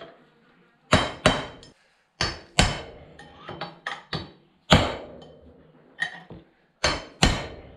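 Hammer driving a steel pin punch to knock the bearing races out of a 1965 Toyota Land Cruiser FJ45 front wheel hub, worked a little on either side. A dozen or so sharp metallic taps at an uneven pace, each with a brief ring.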